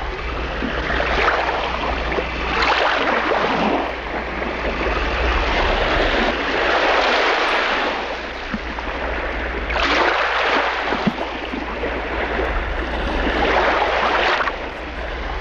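Small boat under way on calm water: water rushing and splashing along the hull, swelling and easing every few seconds, over a steady low hum.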